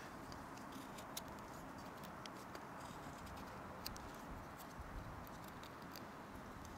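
Fixed-blade knife carving a notch into a green wood stick: a handful of faint, sharp clicks and cuts at irregular intervals.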